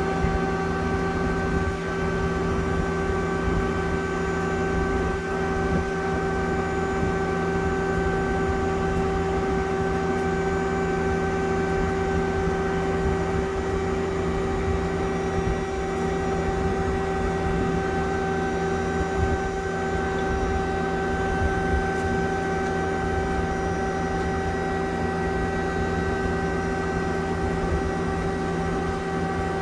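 Mazak Quick Turn Nexus 250-II CNC lathe running with a steady hum made of several held tones. The hum stays unchanged as the tailstock travels toward the chuck and back.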